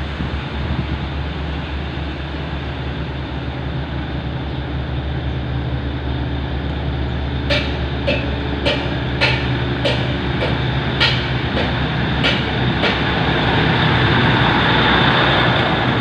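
Diesel passenger train running up and past, its engine hum and rumble steadily growing louder as it nears. In the middle come sharp metallic clicks about twice a second, and near the end the rail noise of the coaches rolling by rises.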